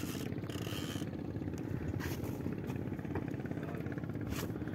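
Fishing boat's engine running steadily with an even, rapid pulse.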